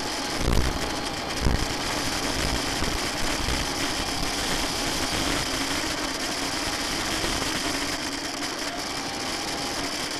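Electric motor and propeller of an FPV model aircraft running steadily, a dense whirring hiss with a steady high whine, heard through the onboard camera's microphone. A few low thumps of wind on the microphone come in the first second and a half.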